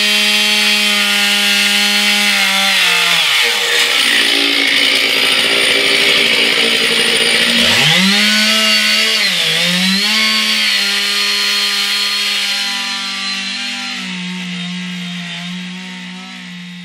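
Stihl two-stroke chainsaw at full revs cutting through logs. Its engine note drops away about three seconds in and rises again to full revs at about eight seconds, then fades out near the end.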